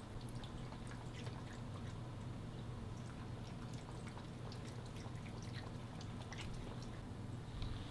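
Cat lapping water from a ceramic pet drinking fountain: many small, irregular wet clicks over a faint steady low hum.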